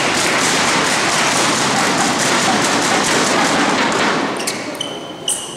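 Spectators applauding, dying away about four seconds in. A table tennis rally then starts, with a few sharp clicks of the ball off the table and bats.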